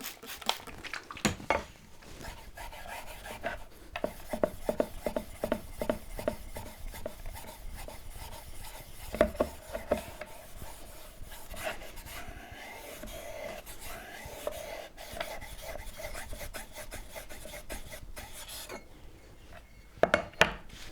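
Japanese waterstone being flattened: rubbed back and forth in quick strokes, about three a second at times, giving a gritty scraping. A few sharp knocks come near the end.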